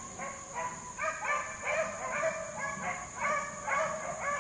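Pack of beagles baying on a rabbit's trail: several hounds giving overlapping cries, two or three a second, picking up about a second in.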